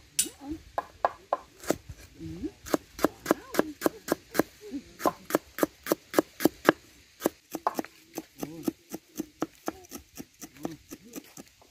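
Cleaver chopping spice ingredients for a curry paste on a round wooden chopping board: quick, even knife strikes, about three to four a second, thinning out in the second half.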